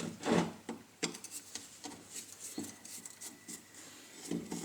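Screwdriver unscrewing the small screws of an angle grinder's gearbox housing: a run of small clicks and scraping rubs from the screwdriver and screws, with a louder handling rustle near the start.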